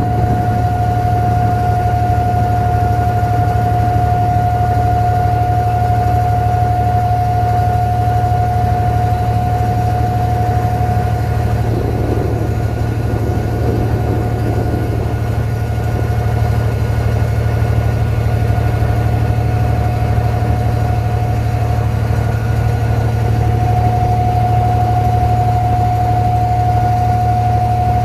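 An abra water taxi's diesel engine running steadily under way: a loud low drone with a steady high whine above it. The whine fades out for several seconds midway and then comes back.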